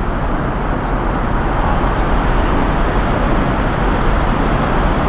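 Steady rushing cabin noise of an Airbus A380 in flight: air and engine noise heard inside the passenger cabin.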